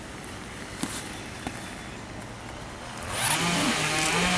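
Faint taps from a soft-top window frame being handled, then about three seconds in an engine comes up loud: a steady hum that steps up slightly in pitch.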